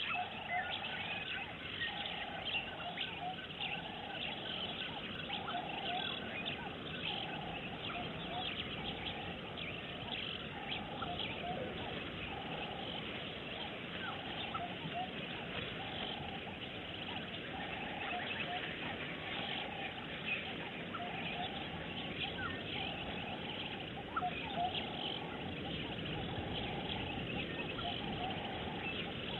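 Bush ambience of many birds chirping, with a lower call repeating about once a second.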